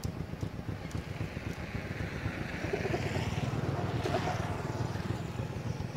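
Motorcycle engine idling with a steady low rumble; a rush of noise swells up about two seconds in and fades near the end.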